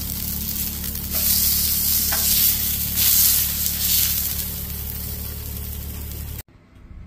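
Wagyu New York strip steak searing on a hot Blackstone flat-top griddle, held on its edge with tongs, over a steady low hum. The sizzle grows louder about a second in, eases off, then cuts off abruptly near the end.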